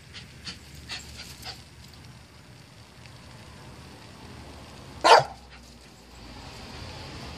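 A dog barks once, short and loud, about five seconds in, after a few faint clicks.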